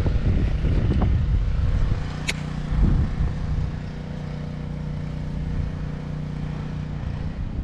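Low wind rumble on the microphone. About two seconds in, a steady low engine hum joins it and runs until near the end, with a sharp click a little after the hum begins.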